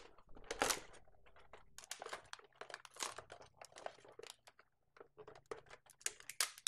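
Plastic and cardboard toy packaging being handled, crinkling and rustling in irregular bursts of small clicks, with a louder crinkle about half a second in.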